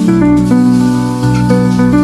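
Background music: a melody of short pitched notes over a sustained bass line.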